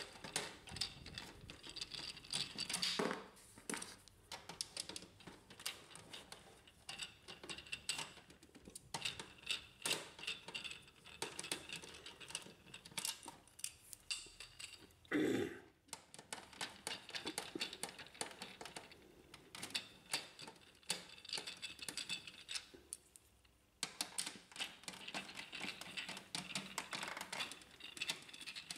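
Faint, irregular clicks and scrapes of a hand screwdriver turning screws out of the sheet-metal cover of a Brother HL-1110 laser printer, with small metallic clinks, and one louder knock about halfway through.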